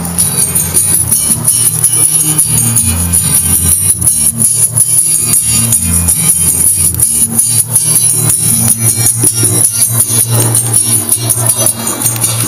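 Music with a bass line and fast, steady high percussion.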